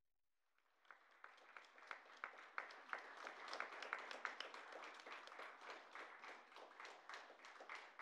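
Audience applauding. It starts about a second in, builds quickly, and goes on steadily with single claps standing out.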